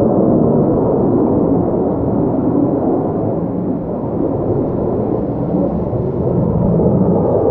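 Fighter jet's engine noise heard from the ground: a loud, continuous deep rumble that eases a little midway and builds again near the end.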